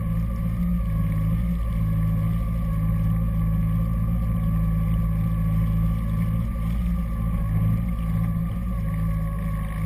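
Jet ski engine running steadily under way: an even low drone with a faint higher whine, holding constant without revving up or down.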